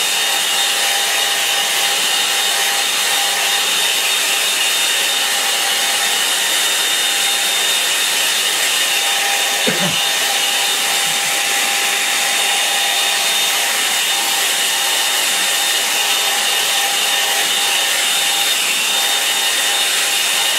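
Handheld hair dryer running steadily over a wet watercolour painting: a loud, even rush of air with a few thin steady whining tones on top. It is drying the freshly laid sky wash.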